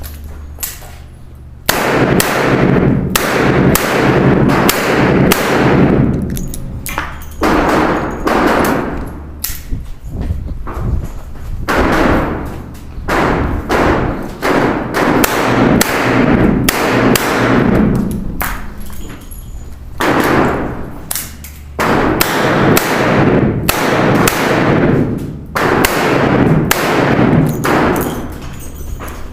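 Smith & Wesson Model 66 revolver firing shot after shot in quick strings, each shot followed by a long echo. Short pauses of a second or two break up the strings while the revolver is reloaded with speed loaders.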